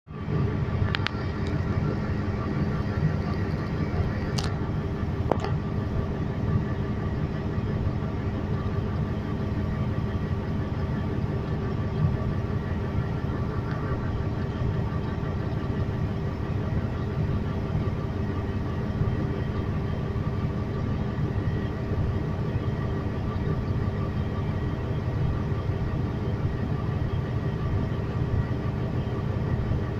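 Diesel engine of a large off-highway haul truck running at a steady idle, heard from inside the cab, with a few short high squeaks in the first several seconds.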